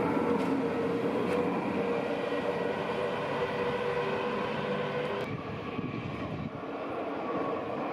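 Dutch electric passenger train running past with a steady whine from its electric drive over the rumble of the wheels. About five seconds in, the sound cuts abruptly to the quieter rumble of a more distant train on the tracks.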